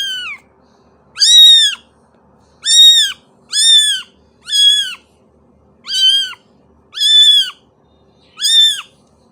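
A kitten mewing over and over: about seven high-pitched meows, each about half a second long with the pitch rising then falling, at roughly one-second intervals.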